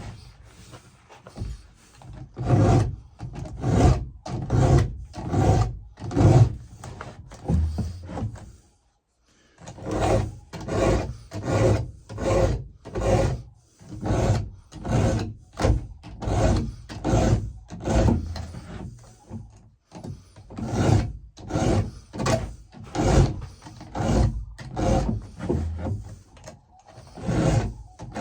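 A hand file rasping across the cutter teeth of a chainsaw chain in steady, repeated strokes, a bit over one a second, with a short pause about nine seconds in. The file is sharpening the cutters on the chain's second side, a few strokes per tooth.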